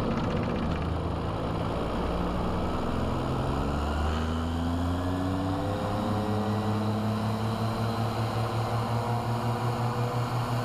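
Raptor prototype's diesel automotive-conversion engine and pusher propeller running during a low-speed taxi turn, heard through a camera mounted on the wing. The engine note shifts in pitch about halfway through, then settles into a steady, even throb.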